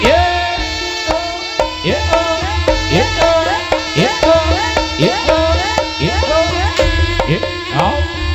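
Javanese Reog gamelan accompaniment for a Bujangganong dance: drum strokes that rise in pitch about twice a second under a sustained pitched melody and a steady held tone.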